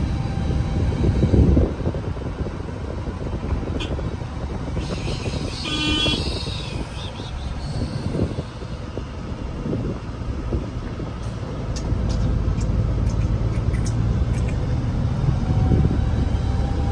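Truck engine running with cab and road rumble as the truck drives slowly, heard from inside the cab. A short beep sounds about six seconds in.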